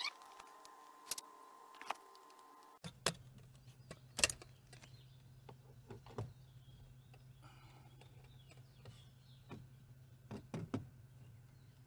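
Scattered light knocks and clicks as a long white plastic pipe is handled and fitted against the ceiling grab handles inside an SUV's cabin, the sharpest about three and four seconds in and a few more close together near the end.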